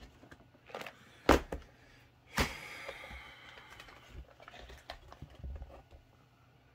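Off-picture handling sounds on a work table: a few sharp taps and knocks, the loudest about a second and a half in, then a short rustle, likely a plastic bag, and a few softer taps.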